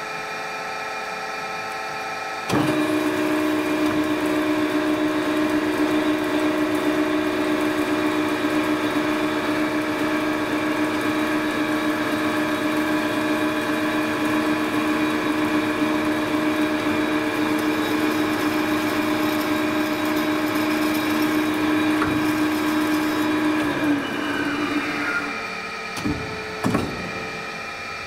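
Behringer HBP360A automatic bandsaw running, its blade starting to cut a wooden board about two and a half seconds in and sawing through it with a loud, steady whine. Near the end the tone drops away as the cut finishes, followed by a few knocks.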